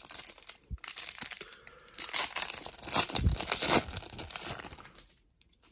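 Foil wrapper of a 1991 Pro Set golf card pack being torn open and crinkled by hand, in spells of crackling that are loudest about two to four seconds in and die away near the end.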